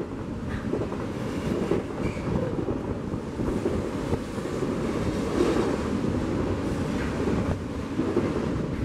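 Steady rumble and rush of a double-stack container train's cars rolling past on the rails, mixed with wind buffeting the microphone.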